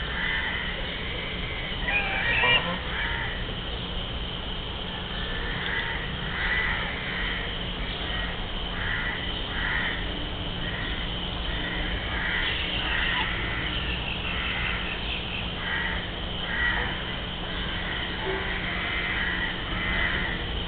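Domestic geese honking on the water: a string of short calls repeating every second or so, the loudest about two seconds in.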